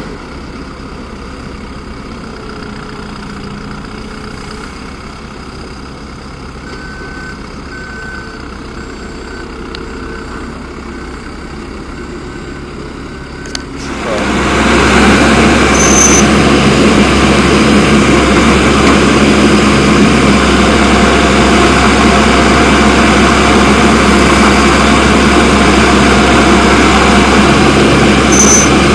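Komatsu WB146 backhoe loader's diesel engine running steadily at low revs, then revving up about halfway through and running loud and hard under working load, as when digging.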